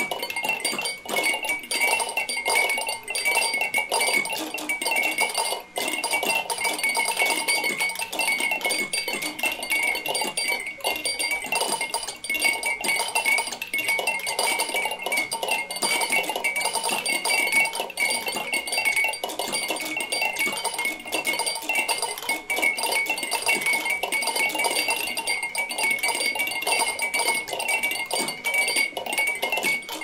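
Hundreds of drinking-bird toys bobbing at once: a dense, steady clatter of small overlapping clinks, with a few ringing tones above it.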